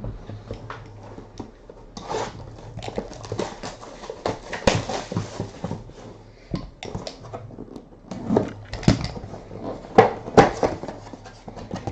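Crinkling and rustling of packaging as a box is opened and a metallic foil bag is handled, in irregular crackles, loudest around the middle and near the end.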